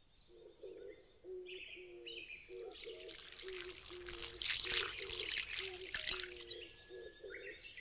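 Outdoor sound-effect ambience of birds calling. A low call repeats steadily about twice a second under higher chirps and a couple of whistled glides. A rushing, water-like hiss swells in over the middle seconds and fades out again.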